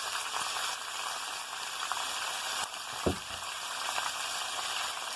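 Chicken pieces, chopped tomatoes and ginger-garlic paste sizzling in hot oil in a pan, with a single knock about three seconds in.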